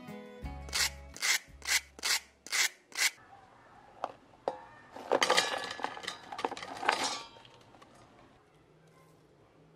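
Crisp fried waffle-cut potato chips crackling as they are handled by hand, about six sharp crunches roughly two a second. Then a dense rattle for about two seconds as a batch of chips is poured into a stainless steel pot.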